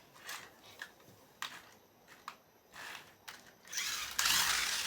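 Toys being handled: scattered clicks and knocks, then a denser rustling noise for about the last second.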